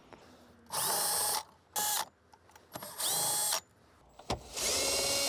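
Cordless drill/driver with a 10 mm socket spinning out the dashboard bolts that hold the radio, in four short runs; each run is a whine that rises as the motor spins up, the second very brief and the last the longest.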